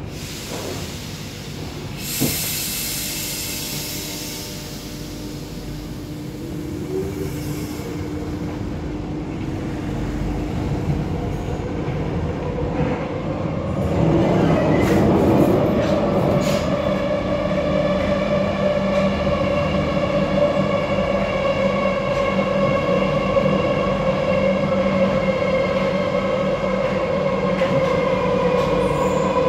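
Paris Métro MF 77 train heard from inside the passenger car as it runs: a click and a hiss a couple of seconds in, then the running noise builds. A steady whine with several tones settles in about halfway.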